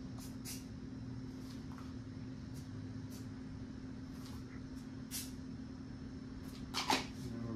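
Aerosol spray-paint can sprayed in short bursts: several brief hisses, the loudest near the end, over a steady low hum.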